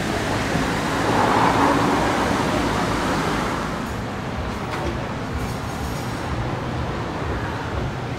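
Steady hum of city traffic noise, swelling for a moment about a second in, then growing quieter and duller after about four seconds.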